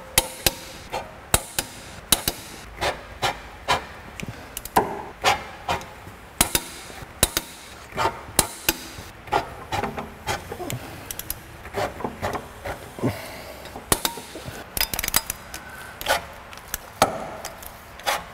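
Irregular sharp metal clicks and knocks of a wrench and socket working on flywheel bolts, one every half second to a second or so, as the bolts are being torqued without a holder to stop the flywheel turning.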